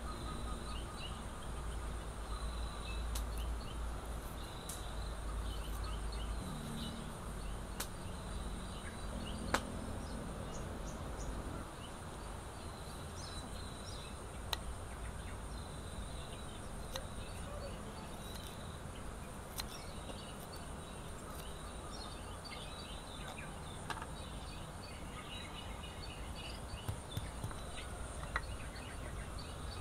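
Outdoor ambience of a steady, high-pitched insect drone with scattered bird chirps. Now and then there is a sharp click of a small knife cutting shallots and turmeric against a stone mortar.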